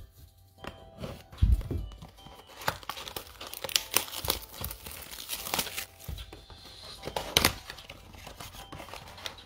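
Plastic wrapping being torn and crinkled off a cardboard trading-card blaster box, in quick crackling rips. A thump about a second and a half in as the box is set down.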